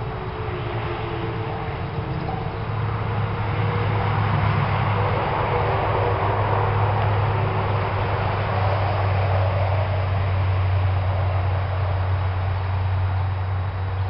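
Faint distant outdoor warning siren tones dying away over the first few seconds, under a low steady rumble that swells and then eases off.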